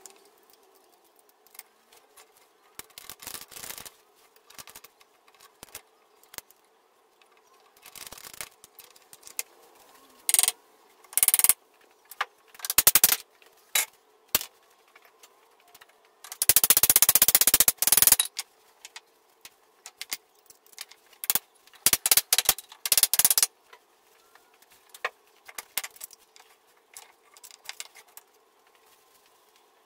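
Ratchet straps being tightened and handled on a glue-up: irregular sharp clicks and knocks, with a dense rattling run of ratchet clicks lasting about a second and a half past the middle.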